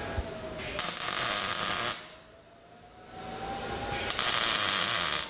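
Two tack welds on steel tubing: a welding arc hisses harshly for about a second, starting about a second in, and again about four seconds in.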